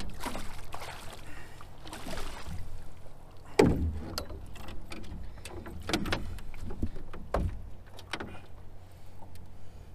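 Knocks and clunks on an aluminum fishing boat as a landing net and a freshly caught fish are handled aboard, the loudest about three and a half seconds in, over a steady low rumble.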